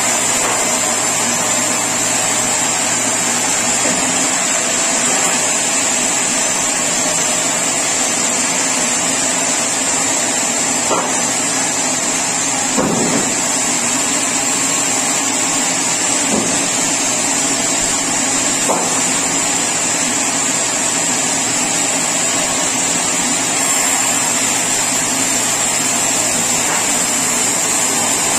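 Sawmill saw machinery running steadily: a constant high whine over dense mechanical noise, with a few short knocks partway through.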